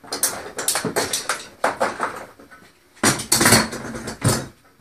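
Metal clamps clattering and clinking as they are picked up and handled, in two runs of rapid clanks with a short pause between.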